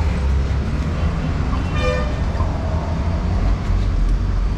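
Road traffic with engines running as a steady low rumble. A vehicle horn gives one short toot about two seconds in.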